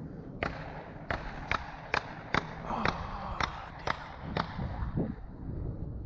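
A run of sharp clicks, about two a second, that stop about four and a half seconds in, over a low rumble of wind on the microphone.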